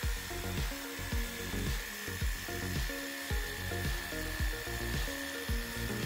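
Background music with a steady beat, laid over the steady whine and hiss of a Worx Hydroshot battery-powered pressure washer spraying water.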